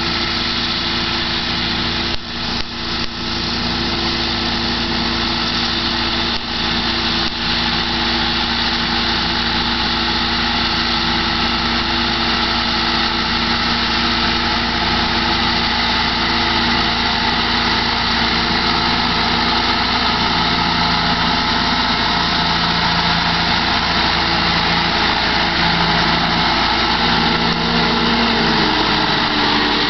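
Massey Ferguson 6130 tractor's diesel engine running steadily under load while it drives a Kuhn GMD 600 disc mower cutting hay, the spinning discs adding a dense whirring hiss. It grows slightly louder as it approaches, and the engine note dips near the end as it passes close by.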